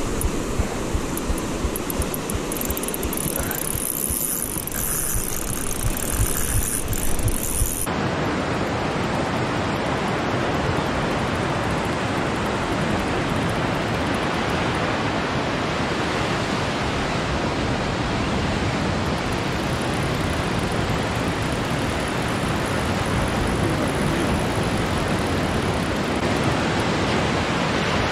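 Steady rushing noise of surf and wind on the microphone. About eight seconds in the sound changes abruptly to a fuller, even roar.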